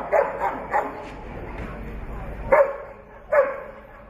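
A dog barking: a quick run of about four barks at the start, then two single barks later on.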